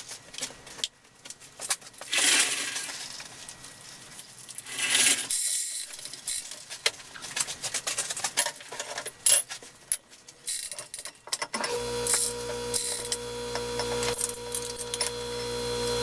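Steel lifting chains clinking and rattling as a sling and chain hoist are rigged onto a heavy steel shaft. About twelve seconds in, a hoist motor starts with a steady hum as it lifts the shaft.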